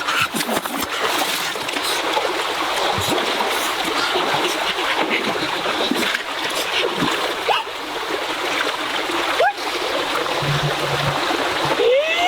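Running water with splashing and trickling, steady throughout.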